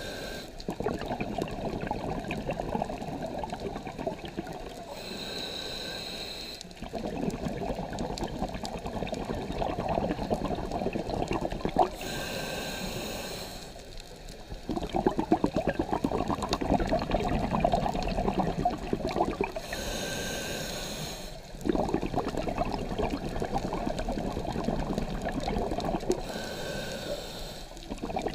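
Scuba diver breathing through a regulator underwater. A short hissing inhale comes about every seven seconds, four times, and each is followed by a long bubbling rush of exhaled air.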